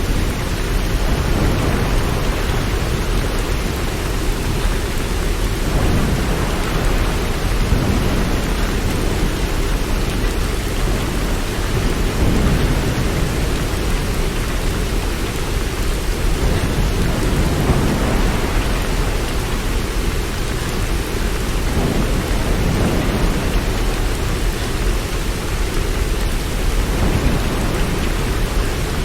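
Steady rain, an even continuous hiss, with low rumbles swelling and fading every few seconds underneath.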